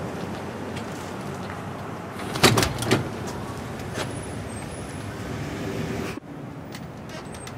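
Glass shop door pulled open and swinging, with a couple of loud clunks about two and a half seconds in, over steady street and traffic noise. The background noise drops suddenly about six seconds in.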